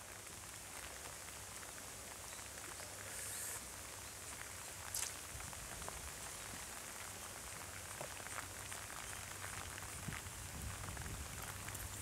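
Steady rain falling on the river surface, an even hiss with a few brief sharp ticks.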